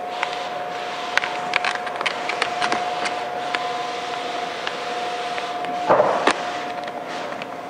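Chrome vinyl wrap film being pressed and worked onto a plastic grille by hand: scattered small clicks and crackles, with a louder rub about six seconds in, over a steady hum.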